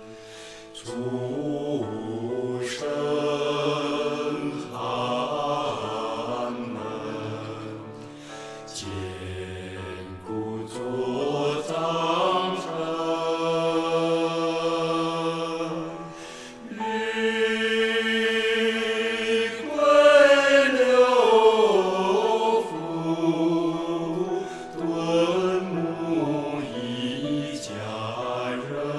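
A Chinese devotional song: a voice singing long held notes that glide between pitches, over instrumental accompaniment with occasional sharp accents.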